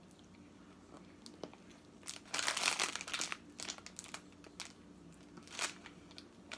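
Plastic candy wrapper crinkling in someone's hands: a longer rustle about two seconds in, then scattered crackles and a short rustle near the end.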